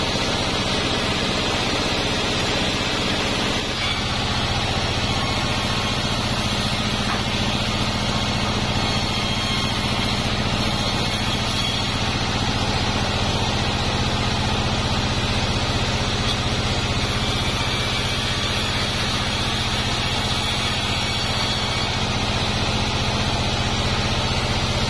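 Sawmill bandsaw machine running steadily with an even low mechanical hum as durian-wood planks are fed through the blade.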